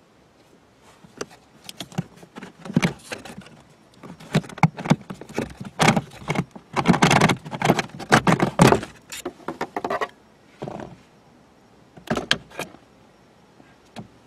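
Pleated cabin pollen filter being pulled by hand out of its plastic housing slot behind a car dashboard: scraping, rustling and plastic clattering in irregular bursts, busiest in the middle, with a couple of sharp clacks near the end.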